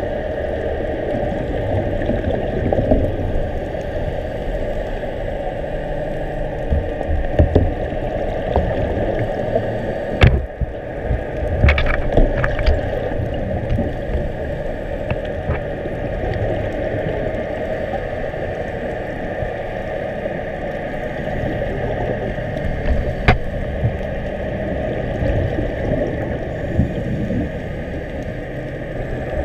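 Muffled underwater water noise picked up through a diving camera's housing, a steady rumble and wash, broken by a few sharp clicks about a third of the way in and again near the end.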